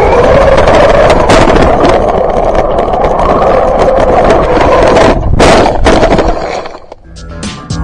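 Small radio-controlled buggy driving fast over rough pavement, heard from an action camera mounted on the car. Its motor and tyre noise makes a loud steady rush with wind on the microphone, and it dies away near the end as music with a beat comes in.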